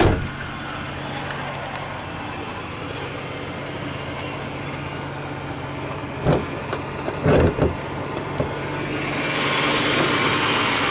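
Ford Taurus engine idling steadily, with a thump at the start and a few clunks about six to eight seconds in as the hood is released and raised; near the end the engine sound grows louder and brighter with the engine bay open.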